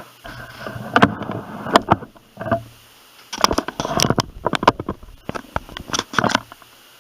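Handling noise: two spells of rustling with many sharp clicks and knocks, as the instructions and hard plastic LEGO pieces are moved around, with a short pause between them.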